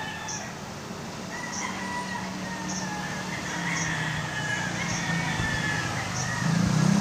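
Rooster crowing in long, drawn-out calls over a steady low background hum.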